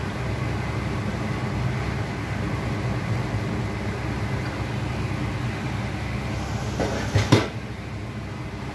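Steady low rumble of a gas stove burner under a pot of water at the boil, with fish pieces just dropped in. About seven seconds in come two sharp knocks close together, the loudest sounds here.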